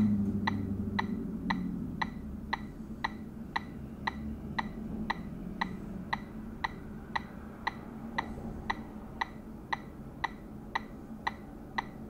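Raw data from a Gentoo Linux root partition played as audio through aplay: a constant little ticking tempo, about two sharp clicks a second. A low hum fades out over the first couple of seconds.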